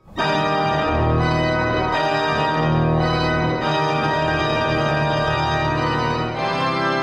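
The 1909 Schlag & Söhne symphonic pipe organ playing loud, sustained full chords over deep bass notes, entering suddenly at the start and moving to a new chord every second or two.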